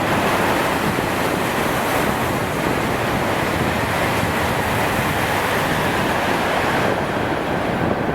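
High-speed bullet train passing at speed: a loud, steady rush of air and wheel noise that swells in and dies away near the end.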